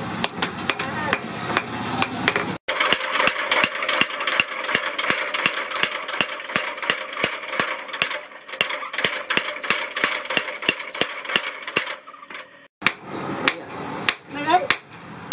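Mechanical power hammer pounding a red-hot spring-steel knife blade in a rapid, even run of blows, several a second. Near the end, slower, irregular hammer blows on the anvil.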